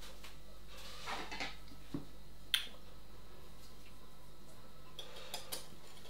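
A few scattered light clinks and knocks as a small glass bowl and a hand whisk are picked up and handled, the sharpest about two and a half seconds in, with the first few whisk strokes against the glass near the end.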